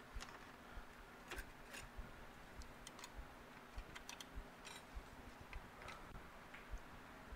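Faint, irregular light metallic clicks and clinks: Yamaha AT-1 clutch plates being handled and stacked into the clutch.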